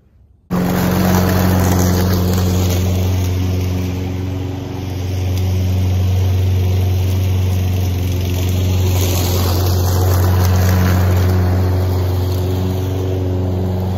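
Gas walk-behind lawn mower, an all-wheel-drive self-propelled model, running steadily while mowing. It is a loud, even engine hum that cuts in abruptly about half a second in.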